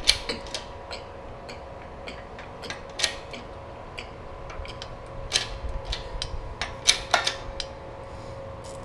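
Irregular metallic clicks and ticks from an AK rivet jig as its press is worked to crush and form a long rivet in an AKM rear trunnion, with a faint steady hum underneath.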